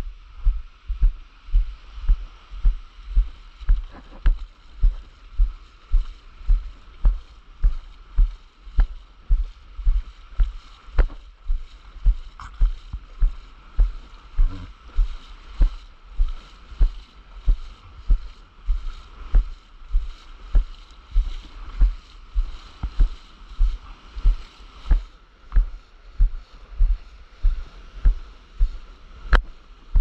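Footsteps on wet sand and in shallow surf, heard as dull thuds jolting a body-worn camera about twice a second, over the steady hiss of small waves breaking.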